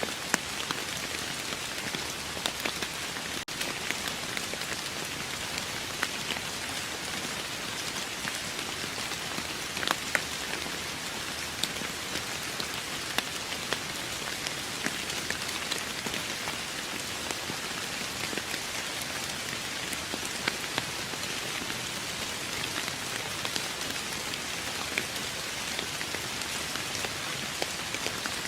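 Steady rain falling on a surface: an even hiss with many separate drops ticking sharply on top. It breaks off for an instant about three and a half seconds in.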